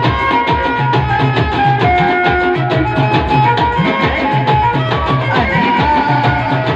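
Live band music for dancing: a fast, steady drum beat under a melody of held notes.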